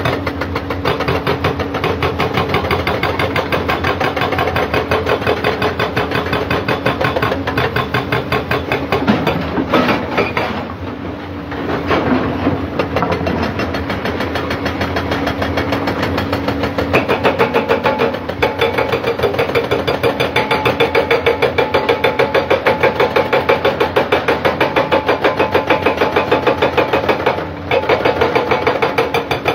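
Excavator-mounted hydraulic rock breaker hammering rock in rapid, steady blows, over the diesel engines of tracked excavators. The hammering eases off for a moment about ten seconds in and breaks off briefly near the end.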